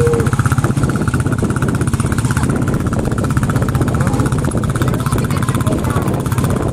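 Engine running steadily with a rapid, even firing beat. A cow's moo trails off right at the start.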